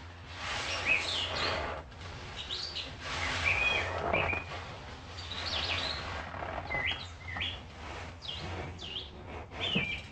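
Wild birds chirping and calling outdoors, with many short rising and falling chirps one after another. In between come a few stretches of rushing noise about a second long.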